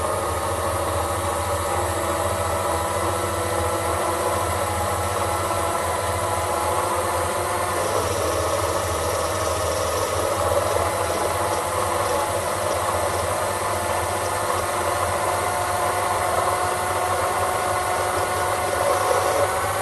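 Sherline mini lathe running steadily, an even mechanical hum with several constant tones, while a brazed carbide tool is fed in and takes a turning cut on a stainless steel test piece from about halfway through.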